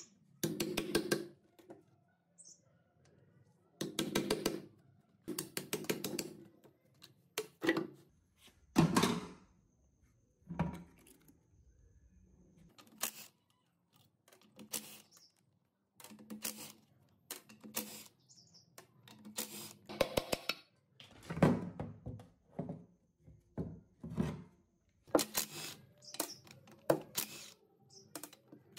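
Metal engine parts being handled and worked by hand: a string of separate knocks, clinks and short scrapes or rattles, coming irregularly, often under a second apart.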